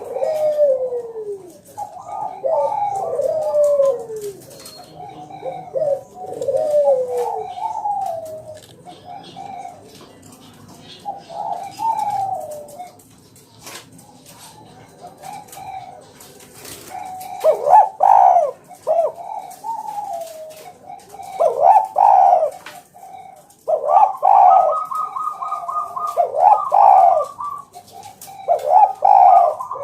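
Spotted dove (tekukur) cooing over and over in short repeated phrases, some of them falling in pitch. The calls come louder and closer together in the second half.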